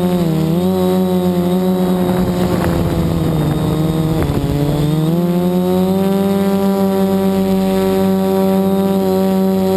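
The HB8 multirotor's electric motors and propellers are whining, picked up through a GoPro hard-mounted on the frame. Their pitch sags briefly about half a second in, drops lower between about three and five seconds as the throttle eases, then climbs back to a steady hum.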